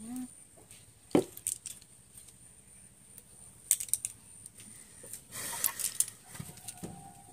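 A few scattered sharp clicks and a short rustle from small things being handled, followed near the end by a short steady tone.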